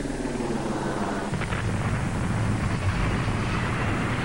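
Logo intro sound effect: a swelling rumble of noise, with a deep rumble coming in about a second in and building.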